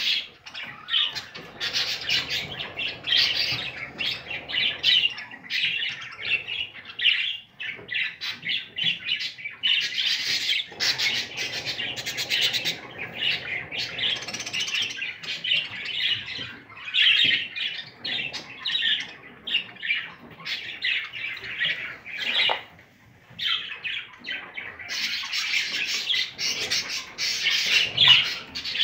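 Budgerigars chattering continuously, a dense stream of quick chirps and squawks with a brief lull about three-quarters of the way through.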